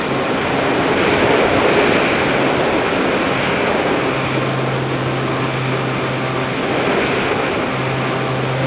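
Wind rushing over the onboard camera of an Easy Star RC model plane flying low, with the electric pusher motor and propeller humming. The hum comes and goes, steadiest through the middle and again near the end.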